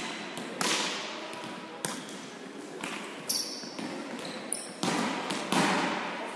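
Volleyballs being struck and hitting the hard hall floor: four loud smacks and a few softer ones, each ringing out in a long echo, with short high shoe squeaks in between.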